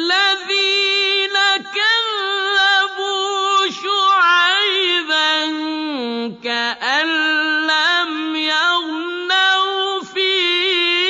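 A single voice chanting alone with no instruments: long held melodic notes with ornamented turns, broken by a few short pauses between phrases.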